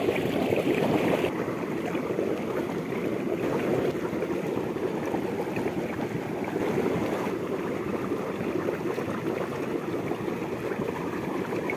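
Steady rushing noise of moving water, even throughout with no distinct splashes or knocks.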